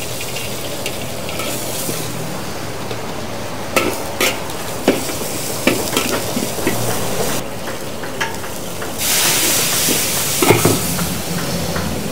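Greens being stir-fried with ginger and dried anchovies: a steady sizzle in the hot pan, broken by scattered sharp clicks of the spatula against the pan. The sizzle grows louder about nine seconds in.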